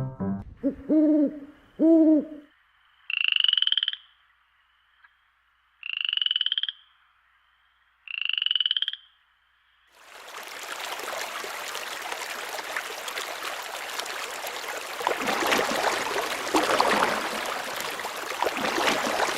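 Night-time nature sound effects. Two low hoots like an owl's come first, then three buzzy, high-pitched calls about two and a half seconds apart, like a frog's croak. From about ten seconds in, a steady rushing noise of running water takes over.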